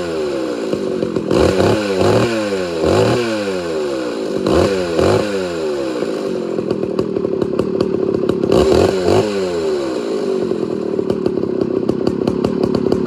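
Homelite Super XL 925 two-stroke chainsaw engine revved in quick blips, about one a second, for the first half, then running at a steadier speed with two more short revs near the nine-second mark. The saw's governed carburetor is being tuned.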